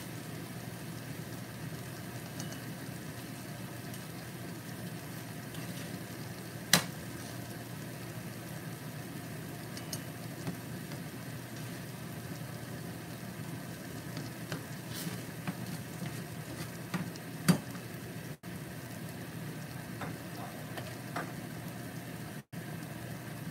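Ginisang kamatis sizzling faintly in a nonstick frying pan on an electric burner that has just been switched off, over a steady low hum. Two sharp pops stand out, about a third of the way in and again near three quarters.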